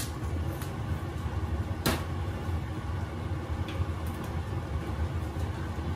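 Steady low rumble from the lit gas cooktop in a kitchen, with one sharp tap about two seconds in and a fainter tick later.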